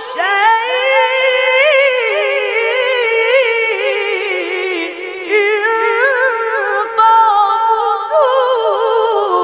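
A boy's unaccompanied voice chanting a Quran recitation in long, melodic phrases, with wavering ornaments on the held notes and a short breath pause about five seconds in.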